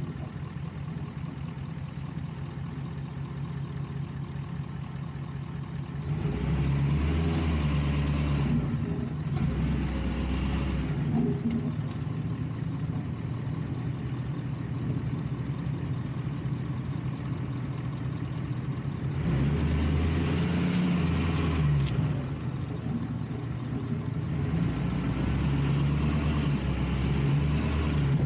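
Off-road truck's engine running as it crawls along a sandy track, a steady low drone that grows louder and rougher three times for a few seconds each.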